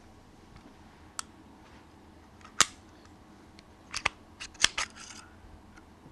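Sharp metallic clicks of a Bersa Firestorm .380 pistol being taken apart by hand. A single loud click comes about two and a half seconds in, followed by a quick run of clicks around four to five seconds in.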